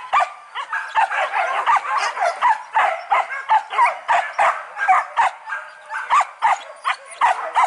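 Several leashed boar-hunting dogs barking and yelping excitedly, short overlapping barks coming several a second.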